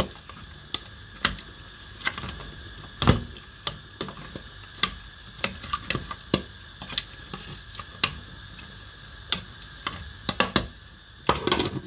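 Irregular sharp clicks and light knocks from pots and a pressure-cooker lid on a stovetop while food cooks, about one or two a second, with a louder knock about three seconds in and a quick cluster near the end.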